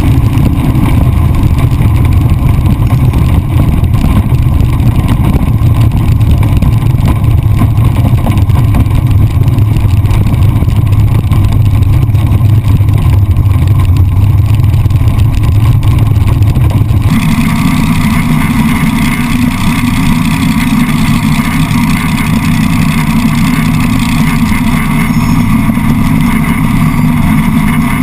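Naturally aspirated small-block Chevy V8 of a sand drag jeep running loud, heard from a camera mounted on the car. About 17 seconds in the sound changes abruptly to a higher engine note.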